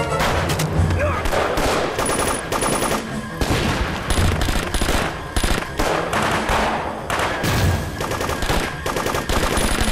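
Dense automatic gunfire: rapid bursts of machine-gun and submachine-gun fire mixed with single shots, going on without a break.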